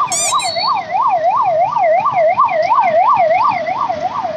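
Ambulance siren in a fast yelp, its pitch sweeping up and down about three times a second over street traffic noise, getting quieter near the end as it passes.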